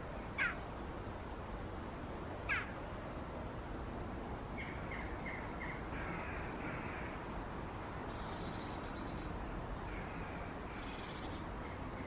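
Birds calling in the trees: two loud, short calls about two seconds apart, followed by softer songbird phrases, a falling whistle and a couple of trills, over a steady low background hum.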